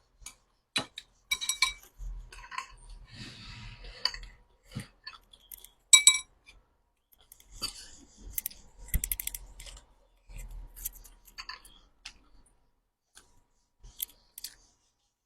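Close-up eating sounds: chewing with utensils clicking and clinking against dishes, including a ringing clink about six seconds in, the loudest sound.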